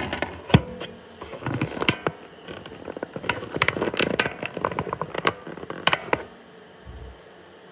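Handling noise from a hand working the recording device up close: a run of irregular clicks, knocks and rubbing that stops about six seconds in.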